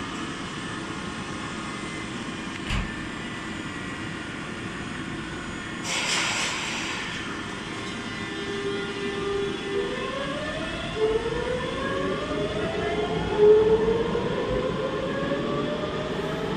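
Tobu 100 series Spacia electric express pulling out and picking up speed. Its traction motors give a whine of several tones rising together in pitch over a steady rumble, with a short hiss of air about six seconds in.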